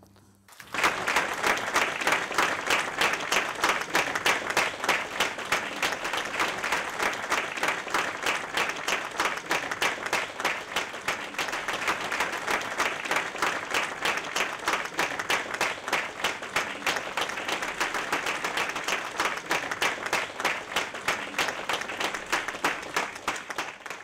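Audience applauding steadily: a dense crowd of hands clapping, starting abruptly about a second in at the end of a lecture.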